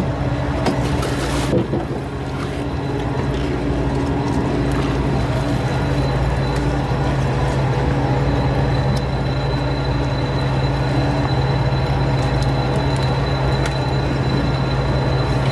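Fishing boat's engine running with a steady, even drone. A brief splash of water about one and a half seconds in.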